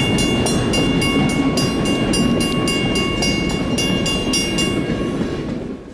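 Grade-crossing bell ringing rapidly, about three to four strikes a second, over the rumble of passenger coaches rolling through the crossing. The bell stops about five seconds in as the train clears, and the rumble fades away.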